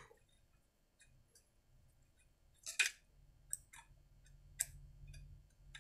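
Faint clicks and light metallic taps of a screwdriver and small screws being handled as screws are taken out of a chainsaw's housing. The loudest click comes about three seconds in, with a few softer ones after it.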